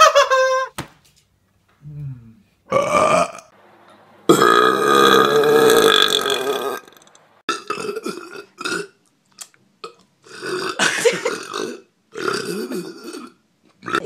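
A string of loud human belches by different men, one after another: two short ones, then one long drawn-out belch lasting about two and a half seconds, then several shorter, ragged belches near the end.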